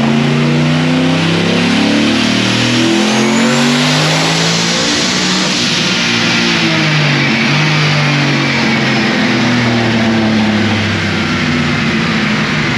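Turbocharged 4.8-litre V8 with a single 88 mm turbo making a hard pull on a dyno, with a thin whistle rising about three to four seconds in. Music plays over it.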